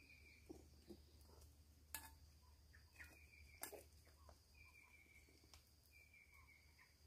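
Near silence: faint outdoor ambience with a thin, high note about a second long that repeats roughly every one and a half seconds, and a few faint clicks.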